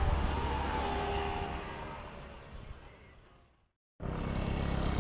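Road traffic noise with a low rumble, fading out to silence about three and a half seconds in. Traffic noise starts again abruptly near the end.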